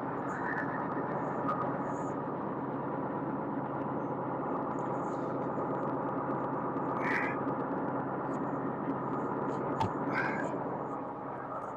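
Tractor engine running steadily, with a few faint high chirps over it and one sharp click about ten seconds in.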